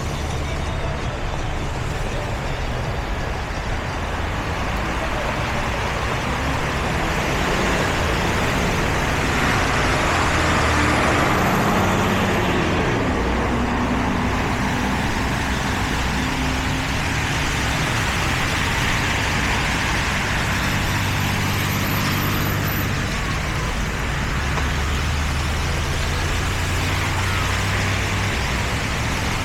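Road traffic on a snow-covered street: vehicle engines running and tyres hissing through slush, with a steady hum throughout. The noise swells as a vehicle passes about ten to twelve seconds in.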